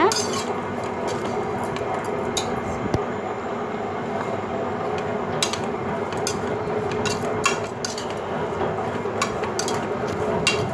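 A metal spoon stirring sliced onions and tomatoes in a metal pot, with sharp clinks and knocks against the pot at uneven intervals over a steady background hum.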